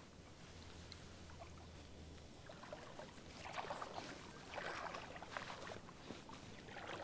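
Feet wading through shallow lake water: soft, irregular splashing and sloshing that starts a couple of seconds in.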